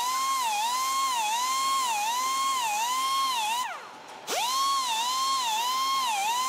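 Straight die grinder with a small abrasive wheel grinding a stainless-steel flange, a high whine whose pitch dips and recovers about every 0.7 s as the wheel is pressed into the metal. Just past the middle it winds down and goes quiet for a moment, then spins straight back up to speed.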